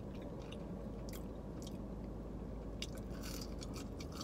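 A person chewing french fries, with soft crunching and a few sharper crackles, over a low steady hum.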